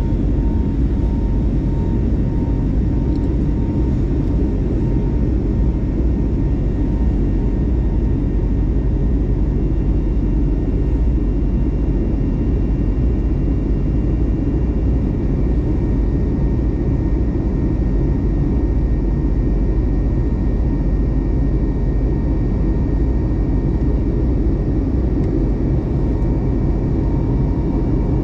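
Airbus A321neo cabin noise in flight: a steady rumble of the engines and airflow heard from inside the cabin, with faint steady hums above it.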